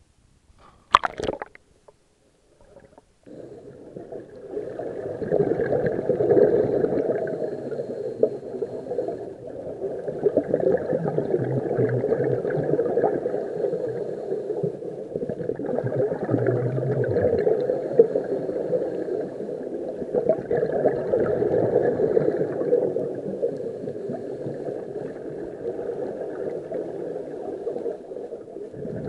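Underwater sound picked up through a camera housing: a muffled rushing and gurgling of scuba divers' exhaled bubbles, swelling and easing roughly every five seconds with their breathing. A brief sharp knock about a second in comes before it.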